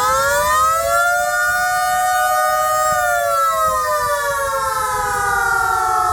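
Air raid siren wailing, two tones sounding together: it holds a steady pitch, then about three seconds in its pitch starts a slow fall.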